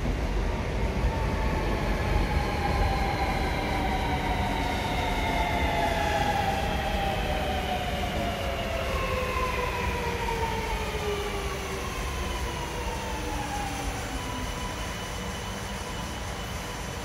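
Sydney Metro Alstom Metropolis driverless train braking as it pulls into the platform. Its electric traction whine is several tones falling together in pitch as it slows, over a low rumble from the wheels. Near the end the whine settles into a steady hum as the train comes almost to a stop.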